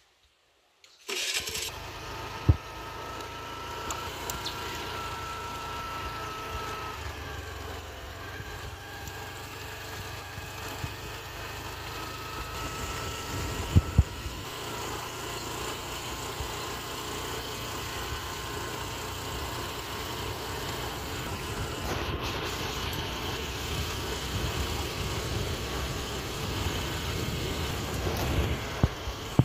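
A small vehicle's engine running as it travels along a road, with road and wind noise. The sound starts abruptly about a second in, and there are sharp knocks about two seconds in and again near the middle.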